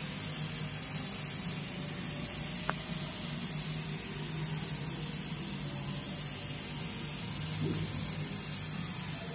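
CO2 laser cutting machine running as it cuts MDF: a steady high hiss over a low hum, with one faint tick about three seconds in.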